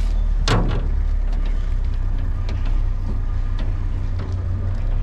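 Vehicle engine running with a steady low rumble. A single sharp crack sounds about half a second in, with a few faint ticks after it.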